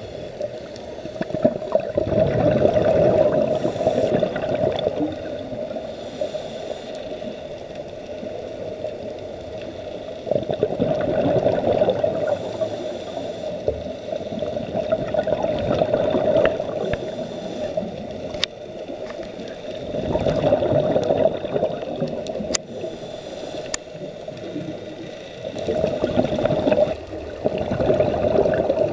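Scuba diver breathing through a regulator, recorded underwater: a short hiss on each inhale, then a long gurgling rush of exhaled bubbles, in a repeating cycle.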